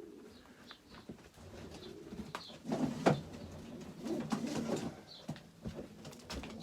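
Racing pigeons cooing repeatedly, mixed with a few sharp clicks and knocks.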